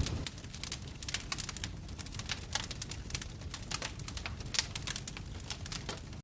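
Wood fire crackling in a fireplace: irregular sharp pops and snaps over a faint low rumble.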